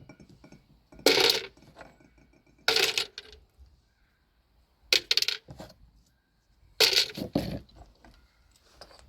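Small metal parts from a dismantled garage door opener being dropped or tossed onto a pile, clattering with a metallic ring in four short bursts about every two seconds.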